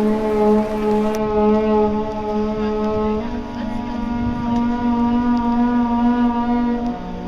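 Background music of long, held chords from wind instruments. The chord changes about three seconds in and again near the end.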